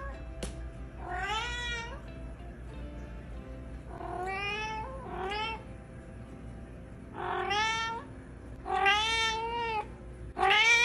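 Domestic cat meowing repeatedly: about five drawn-out meows a few seconds apart, each rising then falling in pitch, growing louder towards the end.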